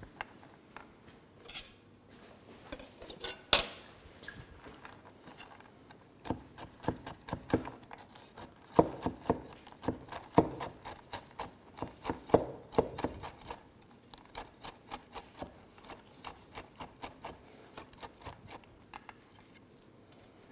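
Metal cutlery clicking against dishes as food is arranged on a plate: a run of short, irregular clicks, busiest in the middle and thinning out towards the end.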